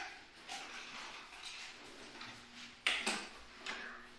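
Light clicks and clatter of motorcycle parts and tools being handled, with a sharp click at the start and a louder knock about three seconds in.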